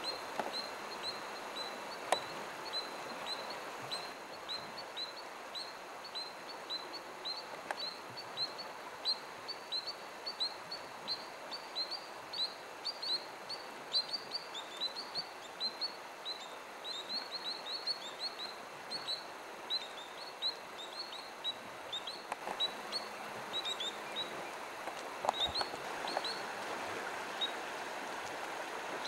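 A small bird chirping over and over, short high downward chirps about three a second that stop near the end, over the steady rush of a river.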